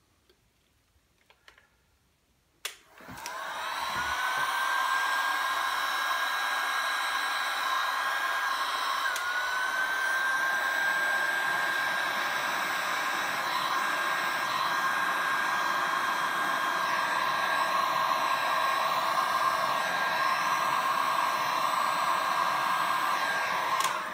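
Heat gun switched on with a click about three seconds in, its motor whine rising as it spins up, then running steadily, blowing over the wet resin, until it is switched off just before the end.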